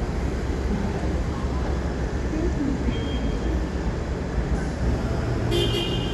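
Steady rush-hour city traffic rumbling, with a short car-horn toot about five and a half seconds in.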